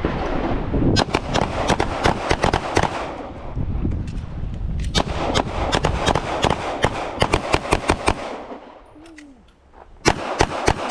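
Several handguns on a firing line shooting rapid, overlapping shots: a first run of shots, a pause of a second or two while the shooters do speed reloads, then a second longer run, with a few last shots near the end.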